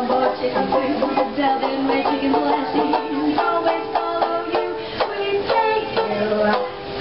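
Ukulele being played in a run of strummed and plucked notes.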